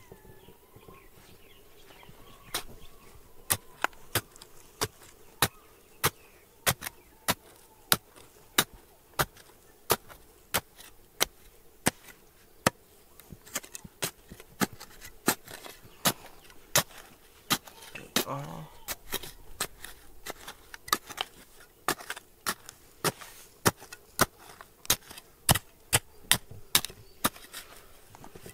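Steady, repeated sharp strikes of a hand tool on rock, about one to two blows a second, beginning a couple of seconds in.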